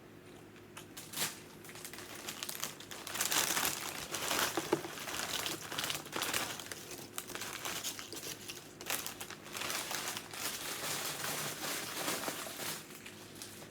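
Wrapper of a hoagie being crinkled and rustled in a long run of irregular handling noises, with a few short tearing sounds.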